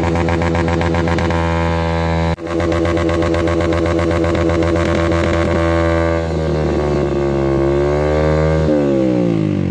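Motorcycle with a loud aftermarket "brong" exhaust, the kind of illegally loud muffler being ticketed, running at a fast steady idle. It cuts out briefly for a moment about two seconds in. In the last few seconds it is revved, the pitch rising and then falling away.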